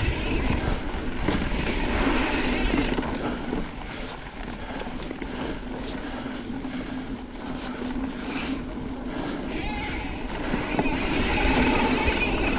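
Mountain bike riding over a dirt trail: wind rushing over the microphone and tyres rolling on dirt, with scattered knocks and rattles from bumps. It is louder at the start, drops for most of the middle, and picks up again near the end.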